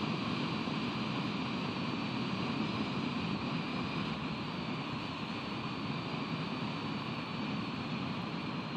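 Steady rushing noise of ocean surf and wind at the nest camera's microphone.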